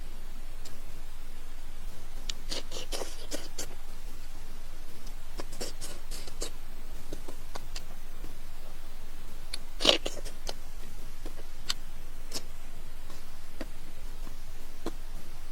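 Close-miked eating sounds: scattered crunches and mouth clicks in small clusters, with one sharper, louder click about ten seconds in, over a steady hiss.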